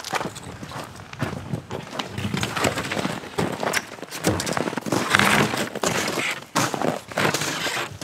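Footsteps crunching through snow, one step after another.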